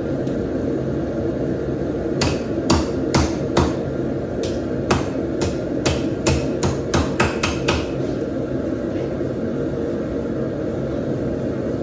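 A hammer striking about fourteen times in a row, at first roughly twice a second and then faster toward the end, over a steady low hum of shop machinery.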